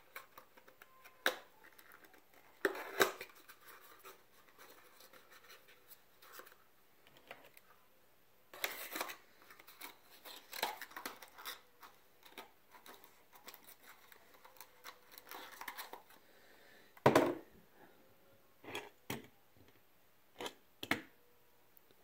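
Small cardboard box and packaging of a die-cast toy car being handled and opened: scattered clicks, scratches and short tearing rustles, with a louder knock about three-quarters of the way through.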